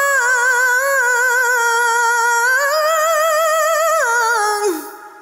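A woman's voice drawing out a long, ornamented vowel in tarannum-style Qur'an recitation in maqam Bayati Jawab, the line wavering continuously. It climbs a step partway through, then falls step by step and fades out near the end with a short reverb tail.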